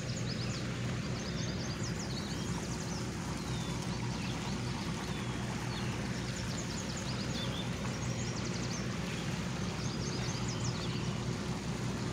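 Steady low engine hum of a small motorboat running out on the water, with birds chirping in quick, high clusters over it several times.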